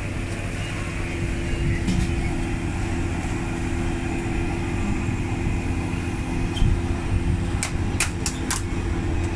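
Steady low roar of a lit gas wok burner under a wok of oil, with a steady hum behind it. A few sharp clacks come close together about eight seconds in.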